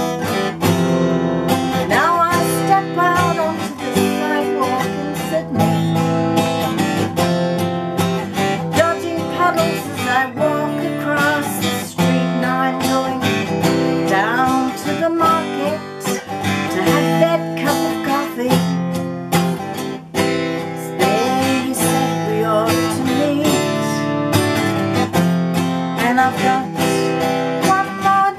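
A woman singing in phrases over her own strummed acoustic guitar.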